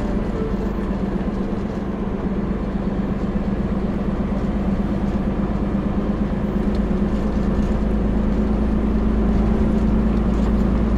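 Heavy truck's diesel engine and road noise heard from inside the Hino cab while driving: a steady low drone, growing a little louder near the end.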